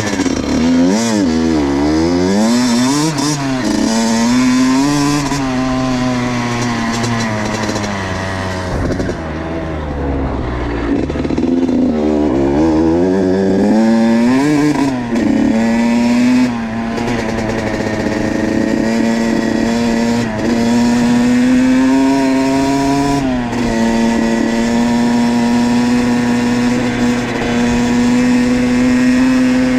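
Honda CR85 85cc single-cylinder two-stroke dirt bike engine, fitted with a Pro Circuit R-304 shorty silencer, revving up and down repeatedly, rising and falling in pitch. About halfway through it settles into a steady high-pitched drone, with two brief dips in revs.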